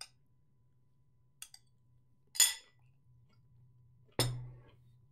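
A few light clicks, then a single sharp ringing clink about two and a half seconds in and a heavier knock with a low thud about four seconds in: objects being handled and set down on a desk. A faint low electrical hum runs underneath.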